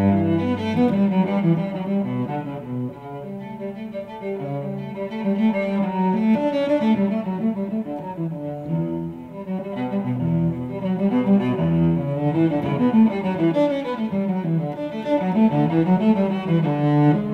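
Solo cello played with the bow: a flowing run of notes and chords, with deep low-string notes near the start and again about ten seconds in.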